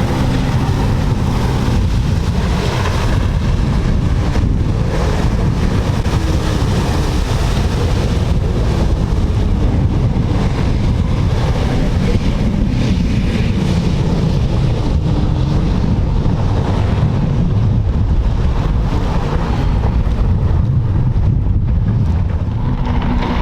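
Jet ski engine running steadily under way over water, with heavy wind buffeting on the microphone.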